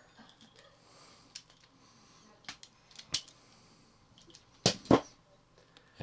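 Hand crimping tool pressing a double brass crimp onto shark-rig wire: a few light clicks, then two sharp metallic clicks close together near the end.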